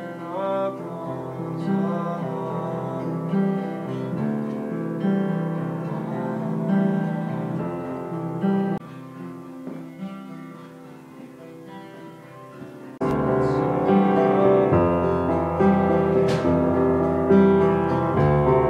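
Band music with acoustic guitar and singing; about thirteen seconds in it cuts abruptly to a louder passage led by piano.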